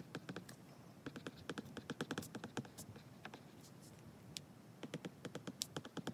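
Apple Pencil tip tapping and scratching on an iPad's glass screen while handwriting: quick runs of small clicks, with a short pause midway.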